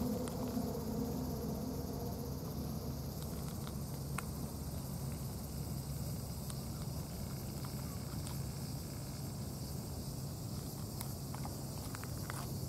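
A cat crunching dry kibble, heard as faint scattered clicks that come thicker near the end, over a steady high insect drone and a low background rumble.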